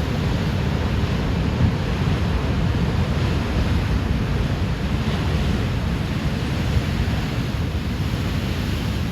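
Ocean waves washing on the shore, a steady surf noise, with wind buffeting the microphone as a low rumble.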